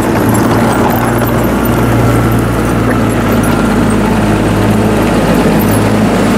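Komatsu GD675 motor grader's diesel engine running steadily close by, a loud even low hum.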